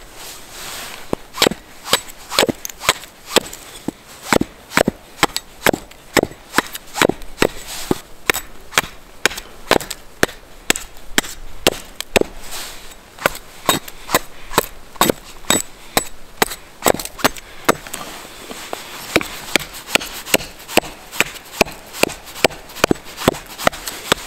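A hatchet chopping a thin wooden board held upright on a log, splitting it into blocks and slats: a steady run of sharp wooden knocks, about two a second.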